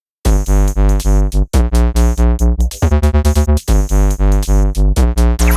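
Electronic background music: synthesizer chords over a bass that pulses about four times a second, starting abruptly just after the beginning.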